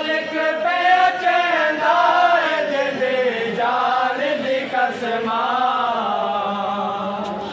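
A group of men and boys chanting a devotional chant together in unison, unaccompanied voices holding long, wavering notes.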